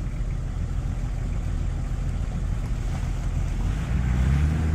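Low rumble of an off-road vehicle's engine running, mixed with wind on the microphone and the splashing of a person wading through shallow river water. About four seconds in, the engine comes up to a louder, steadier note.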